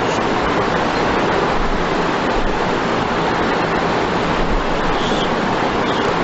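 Steady, loud, even hiss-like noise with no speech.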